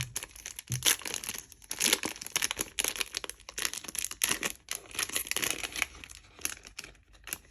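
A Yu-Gi-Oh booster pack wrapper being torn open and crinkled by hand, an irregular, crackly rustle that goes on throughout.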